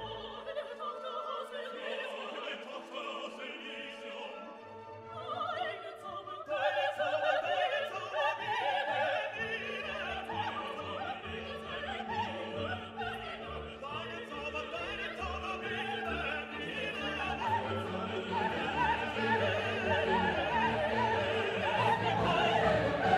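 Orchestral background music with operatic singing, growing fuller and louder about six seconds in.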